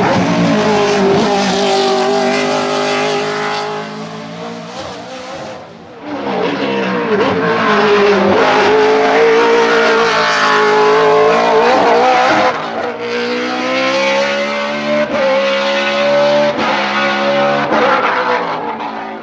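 Mercedes 190 hillclimb racer's Judd V8 Formula 1 engine run hard uphill, its pitch rising and dropping back with each quick gear change. It is loudest as the car passes close and fades away as it climbs off.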